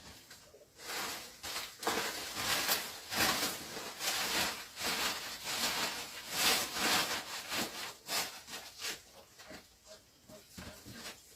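Irregular rustling and scraping strokes, a busy stretch of handling noise that thins out near the end.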